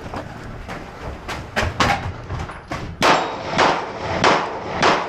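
A series of sharp, loud knocks: a few scattered ones, then from about three seconds in a steady run of strikes about every half second.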